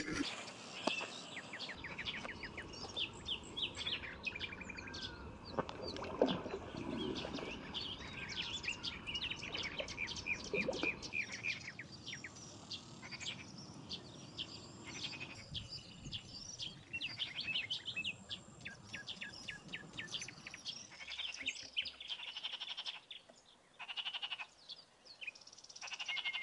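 Small birds chirping and singing in rapid trills of short high notes, with a louder dull knock about six seconds in.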